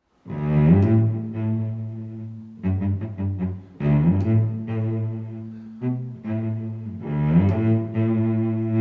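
Background music: low bowed strings such as cello playing long sustained notes in phrases, with a run of shorter notes between them.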